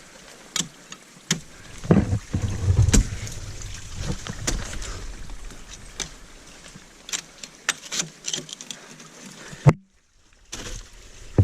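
Ice-climbing tools and crampons knocking and scraping on thin waterfall ice: a string of sharp knocks and ticks, with heavier thuds about two to three seconds in. The sound cuts out for a moment near the end.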